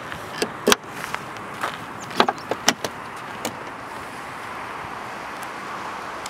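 Car body hardware clicking and knocking: the metal fuel filler flap snaps shut with a sharp click about a second in, then the rear door's handle and latch clatter as the door is unlatched and swung open, over a steady background hiss.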